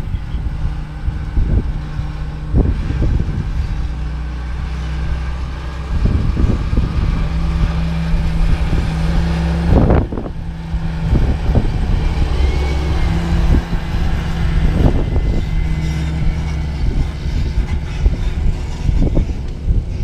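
Steady diesel engine hum as a John Deere tractor pulling a grain cart drives off across the field. The hum grows fuller about six seconds in, and sharp wind bumps hit the microphone, the loudest about ten seconds in.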